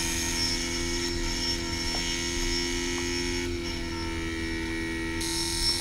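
Small tape drive motor, run from a trigger circuit, spinning steadily with a continuous electric hum of two level tones and a faint high whine. It is running under the load of charging a battery.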